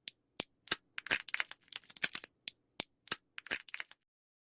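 Birds at a feeder pecking and cracking seeds: an irregular run of dry clicks and crackles, several a second, that stops about four seconds in.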